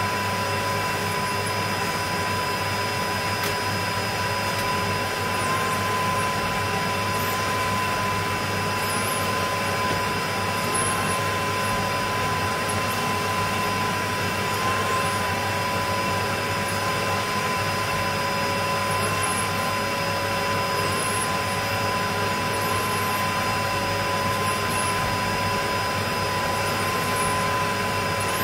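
Dyson DC02 cylinder vacuum cleaner running steadily: a high motor whine over the rush of air being drawn through the hose.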